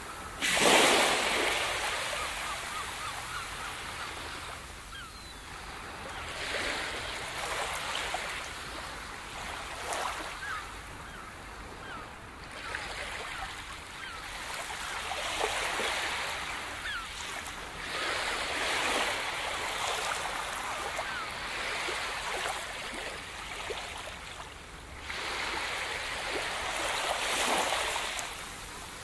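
Ocean waves breaking on a beach, the surf swelling and easing every few seconds.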